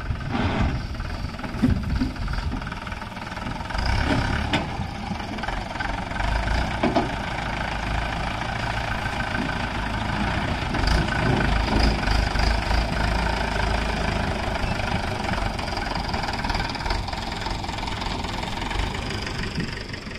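Mahindra 575 tractor's diesel engine running, with a few sharp knocks in the first seven seconds.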